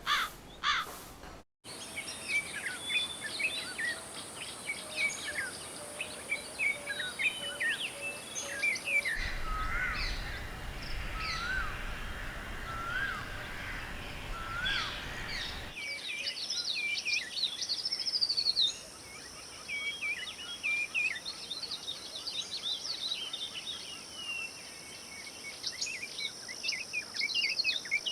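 Many small birds chirping and singing at once, dense overlapping calls, over a steady high hiss. The recording cuts abruptly between takes several times; in one middle stretch a low rumble sits under a repeated rising call about once every second and a half.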